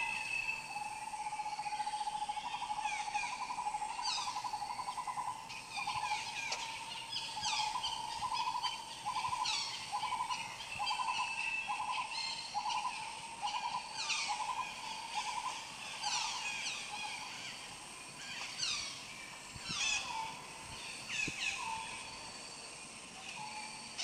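Birds calling outdoors: repeated quick, high, falling chirps about once a second, over a lower steady trilling note that breaks into pulses and thins out about two-thirds of the way through.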